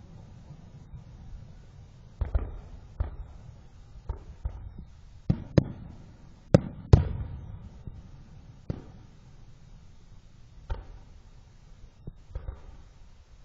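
Fireworks going off: about a dozen sharp bangs at irregular intervals, some with a short rumbling echo after them, the loudest about six and a half seconds in.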